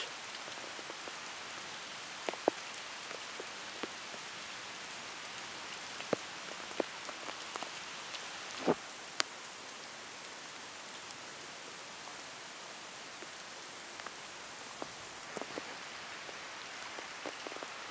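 Rain that is not heavy but falls in very large drops, giving a steady hiss with scattered sharp taps as single big drops land close to the microphone, the loudest about two-thirds of the way through.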